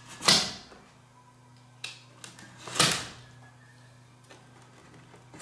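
Craft knife slicing through the leather and felt glued across a batch of organ keys, parting the keys along the gaps between them. Two long cutting strokes, about two and a half seconds apart, with faint clicks between and a low steady hum underneath.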